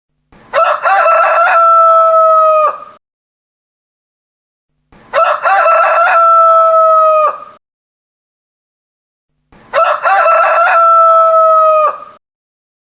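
Rooster crowing three times, about every four and a half seconds, with dead silence between. Each crow opens with a few broken notes and ends in a long held note that drops off at the end.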